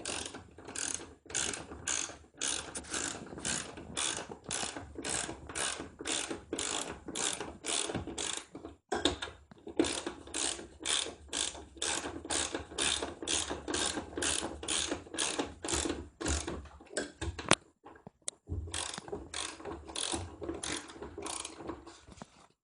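Socket ratchet wrench clicking in quick repeated strokes, about two to three clicks a second, as bolts are run down on a washing machine's motor mount, with brief pauses twice.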